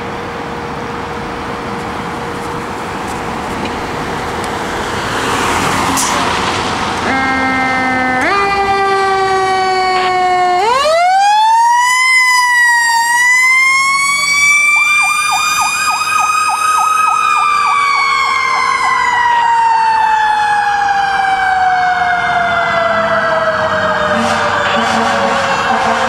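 A fire engine responding with its siren: a few short tones that step up in pitch, then a siren that winds up for several seconds and falls away slowly, with a second pulsing siren sound under it in the second half.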